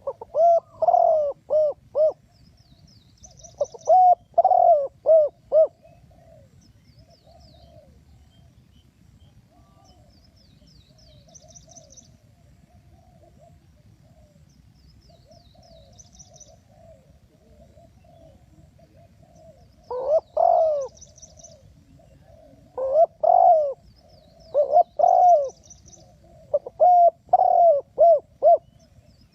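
Spotted doves cooing: loud phrases of several coos in the first few seconds and again in the last third, with fainter cooing in between. Small birds chirp high and faintly throughout.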